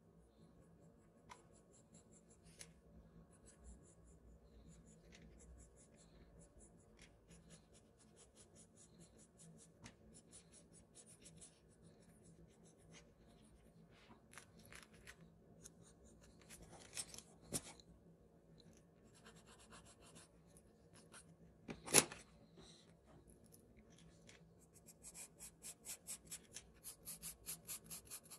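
Pencil strokes scratching faintly on kraft paper, with a single sharp click about three-quarters of the way through. Near the end a charcoal pencil goes over the outline in quicker, louder strokes, about three or four a second.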